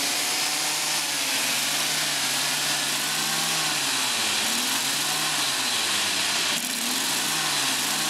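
1948 Chevrolet Fleetmaster's inline-six engine running and being revved up and down by hand at the carburetor several times, its pitch rising and falling with each blip. It is now firing on all six cylinders with new plug wires and the firing order corrected to 1-5-3-6-2-4, with a little stutter just off idle.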